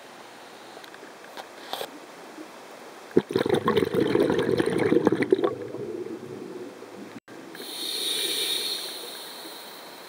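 Water churning and crackling against an underwater camera as it is moved through shallow water. A loud, rough burst comes about three seconds in and lasts a couple of seconds, then a smoother hiss swells and fades near the end.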